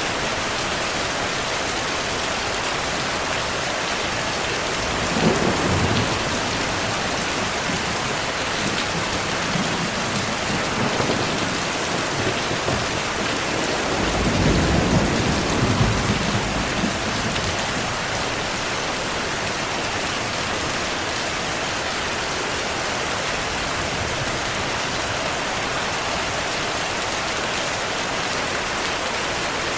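Heavy rain falling steadily, with thunder rumbling low: a short peal about five seconds in and a longer rumble around the middle.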